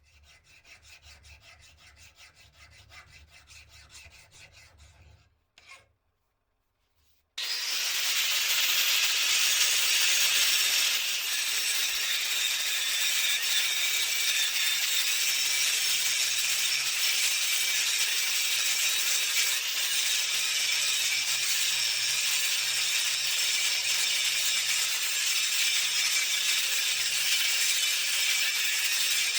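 A hand file rasping across the steel of a hammer head for about five seconds. After a short pause, an angle grinder with a thick cut-off disc starts cutting into the steel: a loud, steady grinding noise that runs on and is the loudest thing heard.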